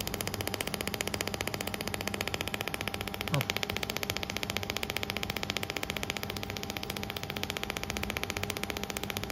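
200 W pulsed laser welding machine firing a fast, even train of pulses into stainless steel pipe as it turns in the chuck: a rapid clicking over a steady machine hum. A brief rising squeak a third of the way in.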